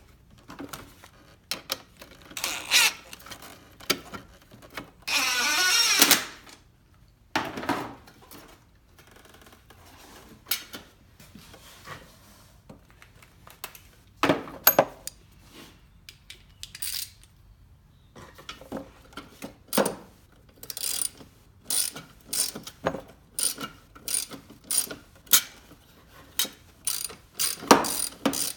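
Hand ratchet wrench clicking and metal tools clinking while fasteners are worked, with a short scraping sound about five seconds in. Over the last third the clicks come steadily, about two a second.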